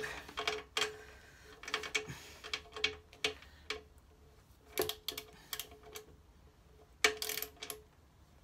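Ratchet wrench tightening the engine guard's mounting bolts to torque: short runs of quick metallic ratchet clicks, in several bursts with pauses between.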